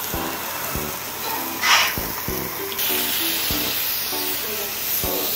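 Background lounge music with a steady beat over the sizzle of thin rolled pork belly frying on a griddle. A brief louder hiss comes just under two seconds in, and the sizzle grows brighter and fuller from about three seconds in.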